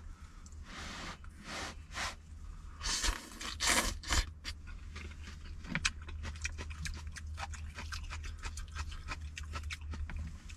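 A person eating hot noodles: three or four loud slurps in the first four seconds, then steady chewing with many small wet clicks.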